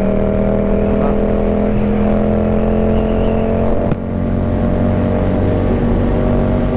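Yamaha MT-07's 689 cc parallel-twin engine running at a steady highway cruise, with wind rushing over the microphone. About four seconds in the sound breaks off sharply for an instant, then carries on.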